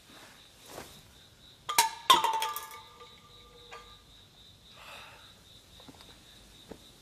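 Crickets chirping in a steady high pulsing trill. About two seconds in, a bright clinking chime is struck twice in quick succession, and its ringing dies away over a second or so.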